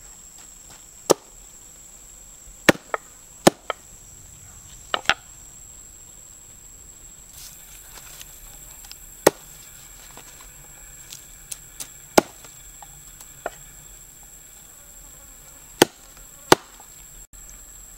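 Cleaver chopping green stalks on a round wooden chopping board: about fifteen single sharp chops at irregular intervals, some in quick pairs. A steady high insect drone runs underneath.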